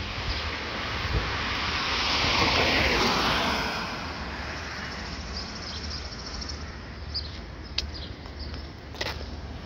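A vehicle passing by: its noise swells to a peak about two to three seconds in and fades away, over a steady low rumble, with a couple of sharp clicks near the end.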